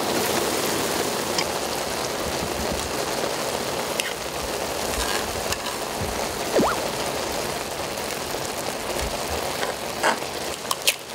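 Spicy ramen broth boiling in a large electric grill pan, a steady bubbling hiss that starts as the lid comes off. A few light taps come near the end.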